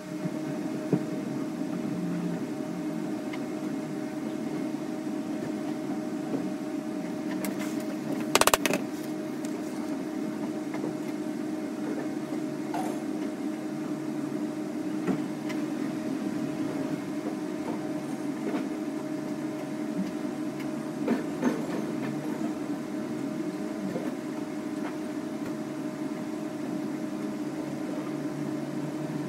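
Small oxy-fuel welding torch flame hissing steadily with a low hum as lead sheet is welded, with a single sharp knock about eight seconds in.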